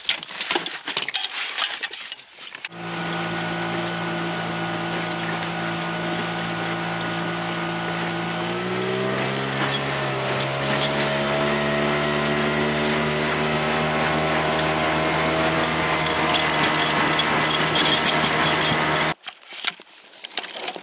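A small boat outboard motor running steadily under way. About a third of the way in it speeds up, its pitch rising and then holding higher, and it cuts off suddenly near the end. Before the motor comes in there is a few seconds of knocking and clattering of gear in the boat.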